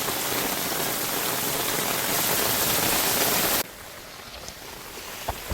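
Heavy rain pouring down in a steady, even wash of noise. About three and a half seconds in it cuts abruptly to a quieter rain patter, with one small click near the end.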